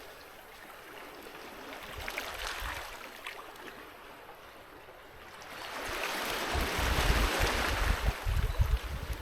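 Sea waves breaking on a beach: a small wash about two seconds in, then a larger wave building past the middle and surging loudest near the end, with low thuds as it breaks.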